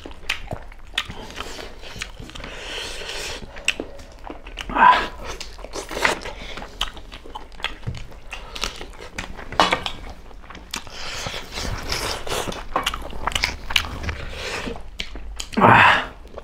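Close-miked eating sounds: two people biting and chewing chicken curry and rice by hand, with many small wet mouth clicks and smacks. A few louder short bursts stand out, about five seconds in, about ten seconds in and near the end.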